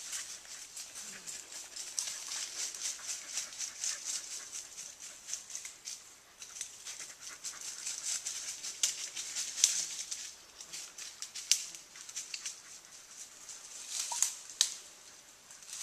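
Leaves and brush rustling and twigs crackling as someone pushes through dense undergrowth, with several sharper snaps in the second half.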